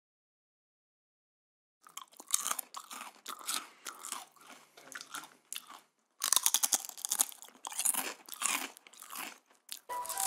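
Crunchy snacks being chewed loudly, a dense crackling crunch that starts about two seconds in and breaks off briefly around six seconds.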